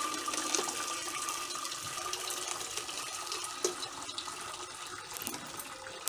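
Soft, cooked chana dal and its cooking water sliding and sloshing out of a pressure cooker into a steel pot, a wet, steady pour that slowly fades.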